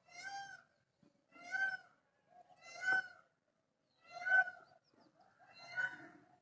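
Peafowl calling: five calls, each about half a second long, repeated roughly every second and a half.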